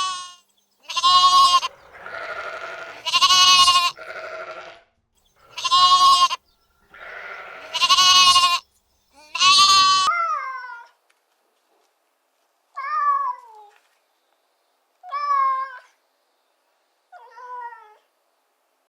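A run of loud, wavering bleats from sheep or goats, each about a second long, followed in the second half by four shorter, fainter calls that fall in pitch.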